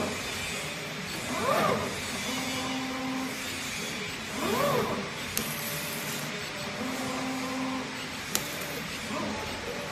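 CNC oscillating knife cutting machine running a pressure-roller creasing job on corrugated cardboard. Its drive motors whine, rising and then falling in pitch as the head speeds up and slows down for each move, about every three seconds, over a steady machine hum. A short even tone holds between some moves, and there are two sharp clicks in the second half.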